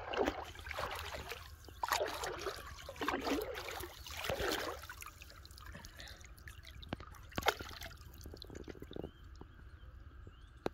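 Water sloshing and splashing in four swishes over the first five seconds, followed by a few light clicks.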